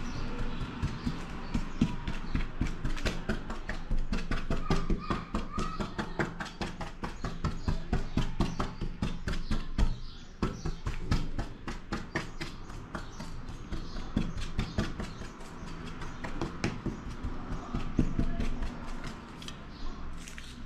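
A fork docking pizza dough in a pizza pan: quick, repeated taps as the tines stab through the dough and strike the pan.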